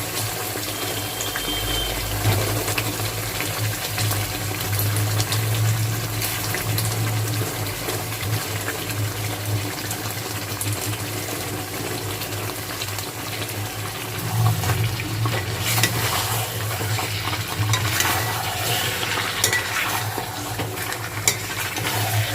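Korma masala sizzling in the pan as fried chicken pieces are added and stirred in, with a continuous crackling fry under a steady low hum.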